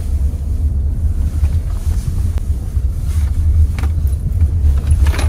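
Car engine and road noise heard from inside the cabin while the car is being driven: a steady low rumble.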